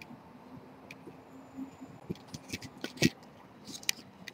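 A run of short, light clicks and knocks, one sharper knock about three seconds in, over a faint steady background hiss.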